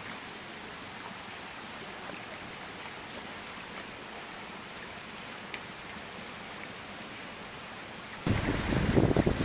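Steady outdoor rushing hiss with a few faint ticks. About eight seconds in it cuts suddenly to much louder, gusting low rumble of wind buffeting the microphone.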